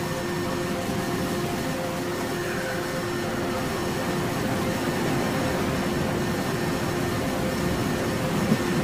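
Dungeon synth music: held low synthesizer tones over a steady noisy wash, with a sharp drum hit near the end.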